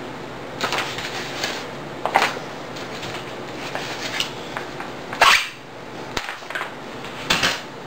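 A yellow padded paper mailing envelope being handled and crinkled: a series of short, sharp rustles, the loudest about five seconds in.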